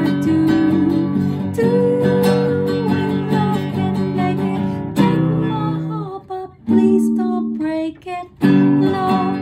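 Nylon-string classical guitar strummed in chords, with a woman singing along. Around six seconds in the strumming breaks into a few separate strokes with short pauses, then full chords resume near the end.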